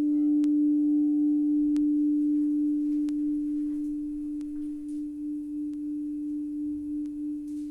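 Crystal singing bowl sounding one pure, steady tone that slowly fades, wavering in a gentle pulse over the second half. A few faint light ticks sound over it.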